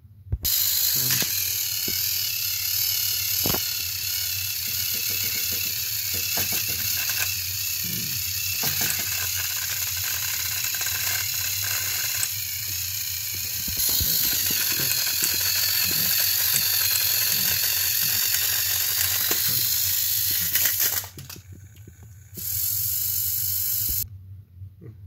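Two battery-powered Thomas & Friends toy engines pushing nose to nose on plastic track, their small electric motors and gears whirring with a steady hiss and scattered clicks from the wheels and gearing. The sound cuts out for about a second near the end, returns briefly, then stops.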